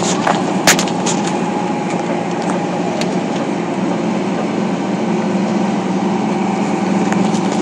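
Airport apron bus driving along, heard from inside as a steady engine and cabin drone, with a few sharp clicks in the first second.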